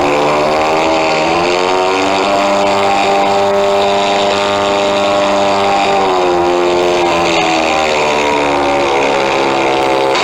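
Electronic engine sound system playing a simulated Avro Lancaster piston-engine sound through small wing-mounted speakers, throttled by a servo tester. The engine note rises in pitch over the first few seconds, holds, wavers around the middle, winds back down, and stops at the end.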